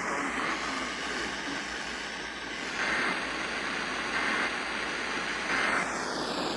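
Radio static: a steady hiss with three brief louder surges of static, about three, four and five and a half seconds in.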